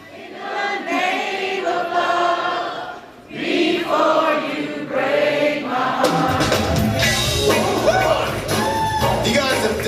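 Live pop vocal group singing in close harmony with little or no backing at first; the band's bass and drums come in about six seconds in.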